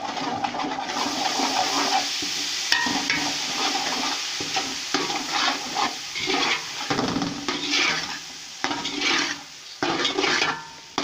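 Onion and spice masala sizzling in oil in a metal pot while a spatula stirs and scrapes through it, a stroke about every second.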